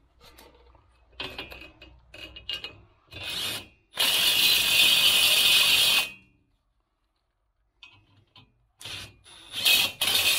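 Parkside Performance PDSSAP 20-Li B2 cordless brushless impact driver run in several short trigger bursts, then hammering steadily for about two seconds from around four seconds in before stopping abruptly. After a pause come a few more short bursts, and another loud run starts near the end.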